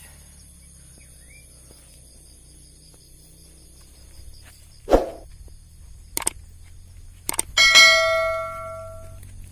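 A single sharp shot about five seconds in, likely the hunter's air rifle, followed by two short clicks. Then comes a loud, bright bell-like ring that fades away over about a second and a half.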